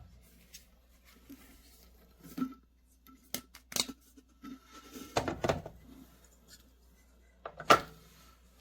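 Objects being handled on a table: scattered clicks and taps, a brief rustle about five seconds in, and one sharp knock near the end.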